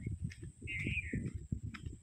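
Footsteps walking along a dirt and grass path, with uneven low thuds. About halfway through, a bird gives a short warbling call.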